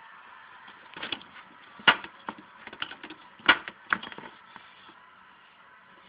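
A scattered run of sharp knocks and clacks from hard tools and parts being handled, the two loudest about two seconds and three and a half seconds in, over a steady faint background noise.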